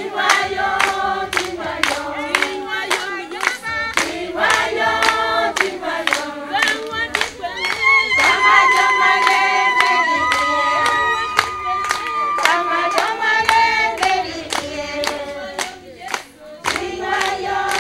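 A choir of voices singing together over steady rhythmic hand clapping, with one voice holding a long high note from about eight to thirteen seconds in.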